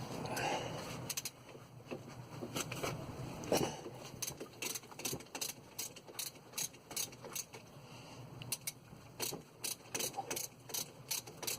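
Ratchet wrench clicking in quick irregular runs of short clicks as a bolt on the brake caliper assembly is undone.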